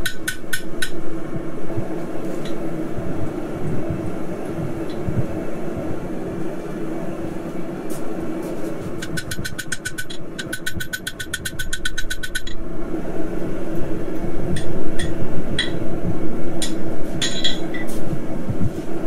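Blacksmith's hammer striking a horseshoe on the anvil in rapid runs of about five ringing blows a second, one run ending about a second in and another from about nine to twelve seconds; scattered lighter taps follow near the end. A steady low hum continues underneath.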